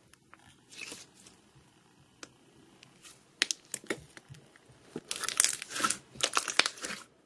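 Thick silver slime being stretched and then pressed by hand in a glass bowl, making sticky crackling and popping. The pops are scattered at first, then come in a dense crackling run for the last couple of seconds.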